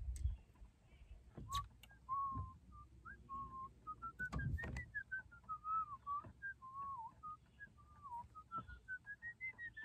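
A person whistling a meandering tune: one clear note stepping and gliding up and down through short held notes, with a few soft knocks of handling, the loudest about halfway through.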